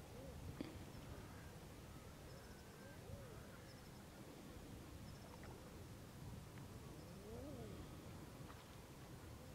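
Common eider drakes cooing: a few soft, faint calls that rise and fall in pitch, the clearest near the end.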